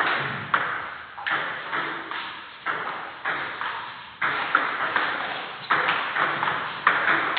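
Table tennis ball clicking back and forth off rubber-faced bats and the table during a rally, a sharp click every half second to a second, each one echoing briefly in the hall.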